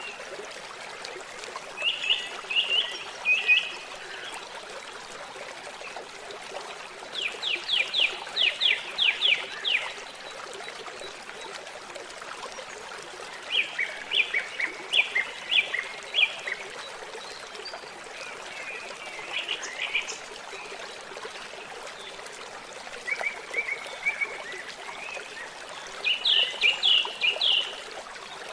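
Water trickling steadily, with six short phrases of rapid, evenly repeated high chirping calls from a small animal, each a second or two long.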